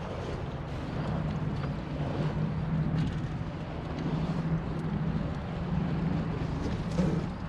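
Wind on the microphone and water around the hulls of a Hobie 16 catamaran, over a steady low hum. There is one brief louder bump about seven seconds in.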